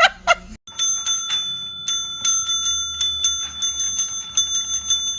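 A small metal bell struck rapidly and over and over, about three or four strikes a second, its ring sustained between strikes.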